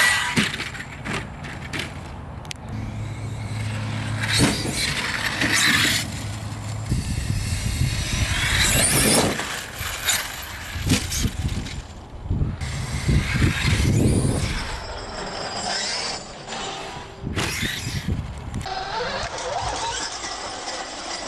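Arrma Kraton 8S EXB RC monster truck driven hard, its Hobbywing 1100kv brushless motor whining up and down in pitch in repeated bursts over the churn of its tyres on the ground.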